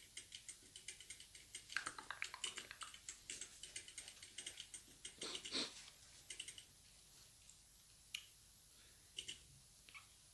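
Quick run of soft clicks and taps from fingers working a smartphone's touchscreen, several a second, thinning out to a few single ticks in the last few seconds.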